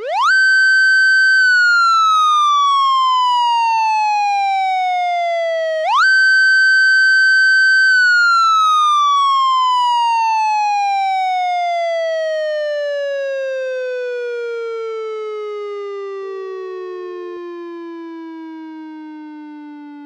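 Police motorcycle siren winding up quickly to a high wail, holding for a moment, then slowly sliding down in pitch. It winds up again about six seconds in and then falls away for a long time, still dropping lower and fading at the end.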